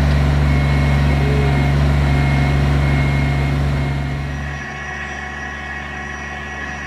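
Kubota BX23S compact tractor's three-cylinder diesel engine running steadily, powering its backhoe as it digs a trench. About four and a half seconds in, the sound drops suddenly to a quieter, thinner engine hum.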